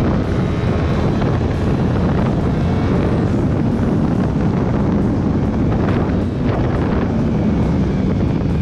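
Heavy wind noise on the microphone over a sport motorcycle engine running steadily at highway speed.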